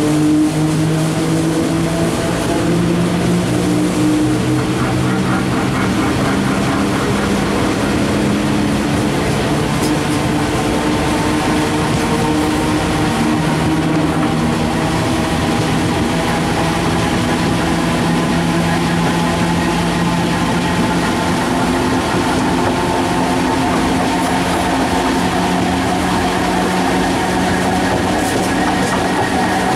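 First-series FS E656 'Caimano' electric locomotive, E656.030, accelerating with a train in tow, heard close up from the gangway of the coach behind it: the traction motors whine in several tones that slowly rise in pitch as speed builds, over a steady rumble of running gear.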